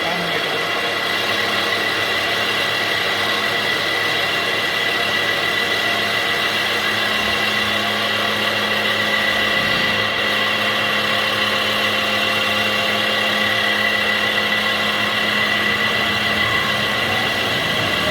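Alloy-wheel lathe running steadily, a high whine over a low hum.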